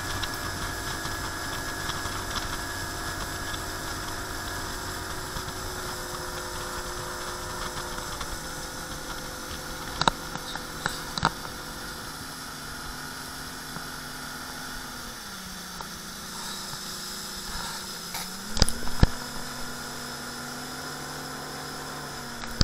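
Bass boat's outboard motor running under way, with wind rushing over the microphone. The engine note drops about two-thirds of the way through and climbs back a few seconds later, and a few sharp knocks come near the middle and near the end.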